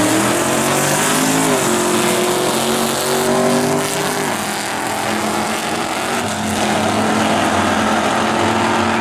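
Two vintage sedans accelerating hard down a drag strip, their engines revving up in pitch and dropping at gear changes about a second and a half and about four seconds in.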